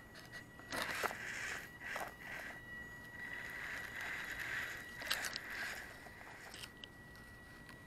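Toy-grade 1/24-scale RC 4x4 crawler (GP Toys S609 Rider 5) climbing a dry dirt mound: its small electric drivetrain whines, rising and falling with throttle, while the tyres scrape and crunch over dry soil, loudest about a second in, at two seconds and around five seconds.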